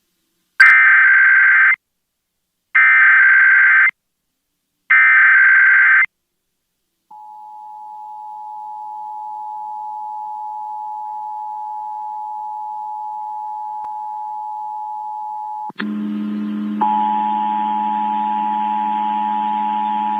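Emergency Alert System test on AM radio: three bursts of SAME header data, each about a second long with a second's gap between, then the steady two-tone EAS attention signal, which fades in after a short silence and holds. About nine seconds into the tone a low buzz joins it.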